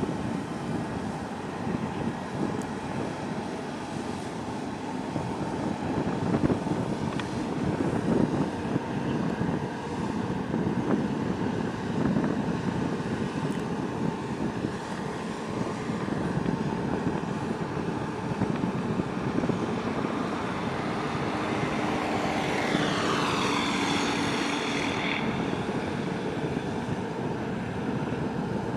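Low, steady rumble of a large container ship's engine and propeller as it passes close by. About three-quarters of the way through, a whine slides down in pitch for a few seconds over it.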